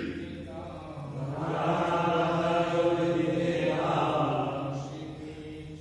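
Men's voices chanting a Sanskrit scripture verse in slow, drawn-out notes, loudest in a long held phrase through the middle.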